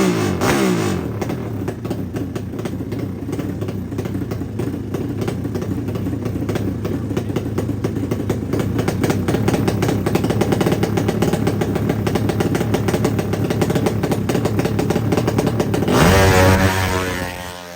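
Drag-race motorcycle engine running steadily with rapid, close-spaced firing pulses. About sixteen seconds in it is revved hard, then the sound drops away.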